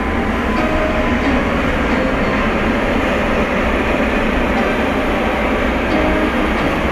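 Freight train of tank wagons passing, a steady rumble of wheels on the rails.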